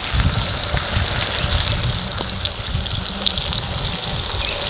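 Sliced potatoes and mushrooms sizzling in a frying pan on a portable gas stove, a steady hiss with small crackles. A steady low rumble runs underneath and is the loudest part.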